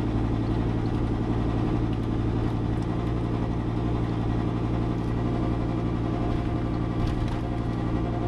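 Dodge Ram's V10 engine, running on wood gas, pulling steadily at about 1300 RPM with a low, even exhaust drone. At this speed a vibration sets up in the exhaust system that makes it sound weird; a little below or above 1300 RPM it goes away.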